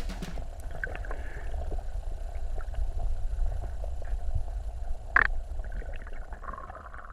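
Low, muffled rumble of moving water with scattered small clicks and one sharp knock about five seconds in; a faint steady tone comes in near the end.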